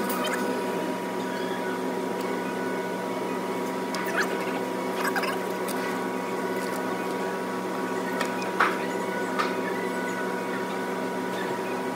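A few short, sharp clicks and taps of metal parts being handled in a truck's engine bay, the loudest one about two-thirds of the way in, over a steady background hum.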